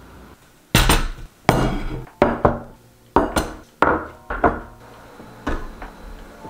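Tableware knocking and clinking: about nine sharp knocks with short ringing, some close together in pairs, as bowls and dishes are set down and handled for a hot pot meal.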